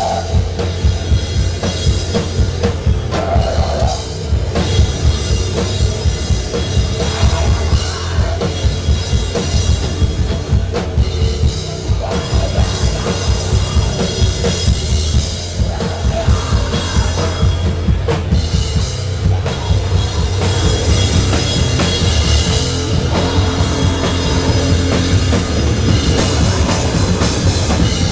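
Live rock band playing loud: electric guitar over a drum kit keeping a quick, steady beat.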